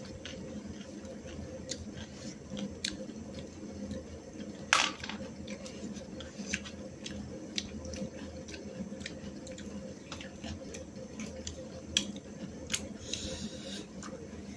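Two people eating rice and curry by hand from steel plates: chewing, wet squishing of food being mixed, and scattered light clicks and taps of dishes, with one sharper knock about five seconds in. A steady low hum runs underneath.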